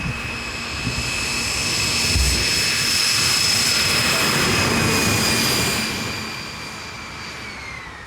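Jet-powered large-scale RC model airliner flying past: a steady high turbine whine over a rushing jet noise that swells to its loudest mid-pass, then fades, with the whine dropping slightly in pitch near the end.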